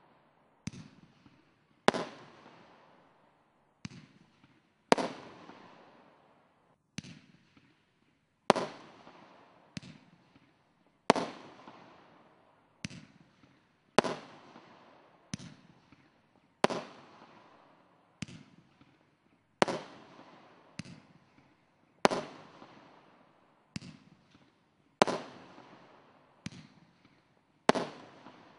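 Consumer firework cake (SkyLine Street Collection SC01-05) firing shot after shot: about two dozen sharp bangs at uneven intervals of half a second to a second and a half, each followed by a tail that dies away.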